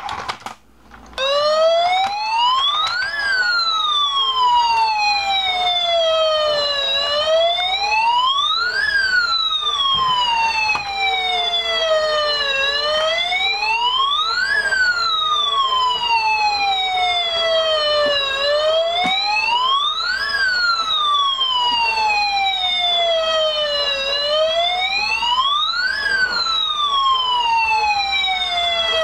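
Battery-operated toy fire truck's electronic siren wailing, starting about a second in: the pitch rises quickly, then falls slowly, and the cycle repeats about every six seconds.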